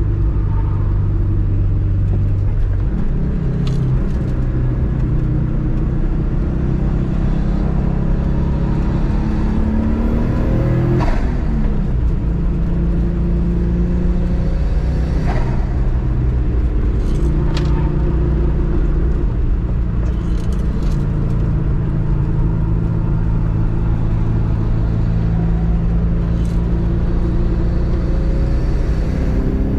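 Subaru Impreza GC8's EJ207 turbocharged 2.0-litre flat-four driven hard on track, its revs rising and falling repeatedly through gear changes. A few short sharp sounds stand out over the engine.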